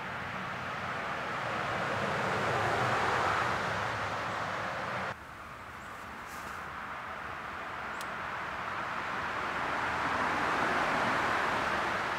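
Road traffic passing: a vehicle's tyre and engine noise swells and fades, breaks off suddenly about five seconds in, then another vehicle's noise builds slowly to its loudest near the end.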